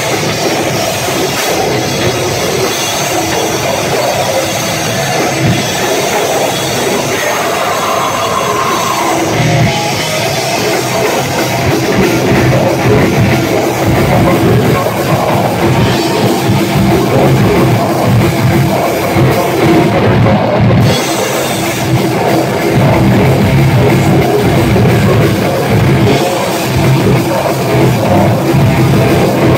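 Heavy metal band playing live and loud, with a drum kit under the guitars; the low end gets heavier about ten seconds in.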